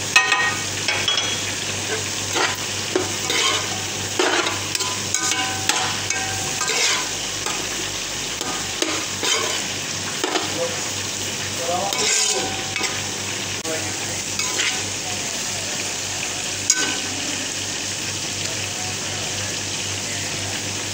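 Sliced onions and peppers sizzling in a hot frying pan as a spatula stirs and tosses them, a steady hiss broken by short scraping strokes of the spatula against the pan, busiest in the first half, with one sharper click about two-thirds of the way through.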